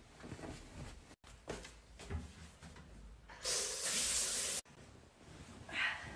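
Low handling noises, then a steady hiss for just over a second that cuts off abruptly, with a short brighter rustle near the end.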